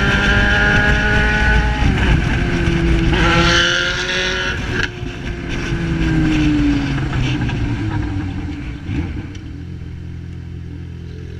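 Yamaha XJ6's inline-four engine with an Atalla 4x1 exhaust revving to high rpm. It holds, dips briefly at about two seconds and climbs again, then falls away in pitch over a couple of seconds and settles to a quieter low idle near the end.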